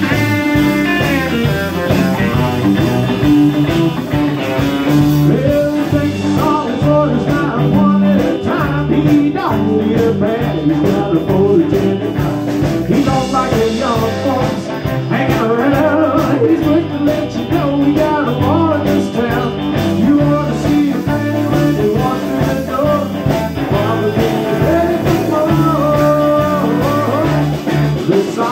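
Live blues-rock band playing: an electric guitar carries a bending, sliding lead line over drums and a steady low rhythm part.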